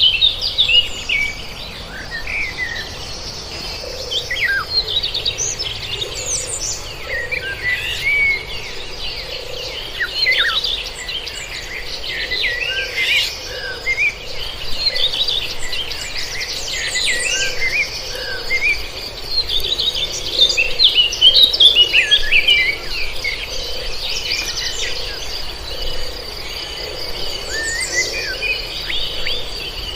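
Several birds chirping and singing in quick, overlapping short calls, over a steady high-pitched insect drone.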